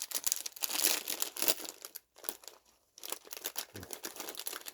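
Plastic snack bag of cheese-flavoured chips crinkling as it is torn open and handled, with dense rapid crackles and a short pause about two seconds in.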